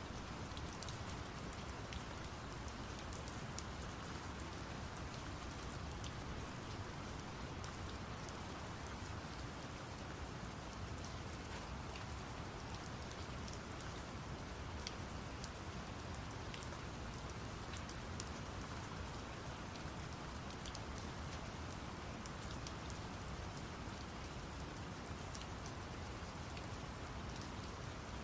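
Steady rain ambience layered with brown noise: an even, unbroken hiss and low rumble, with scattered raindrop ticks on top.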